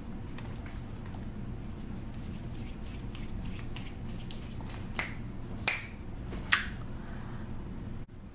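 Fingers snapping: a scatter of light snaps, then three sharp ones a little past halfway, over a low steady hum.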